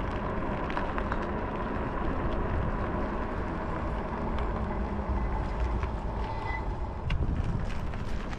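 Wind rumbling on the microphone and tyre and road noise from a moving e-bike, with a faint steady whine and a few small clicks and rattles.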